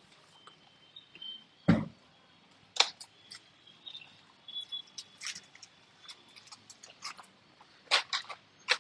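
Cloth wiping a laptop's casing: faint squeaks of the cloth on the surface among scattered clicks and taps of the laptop being handled, with one heavier knock about two seconds in.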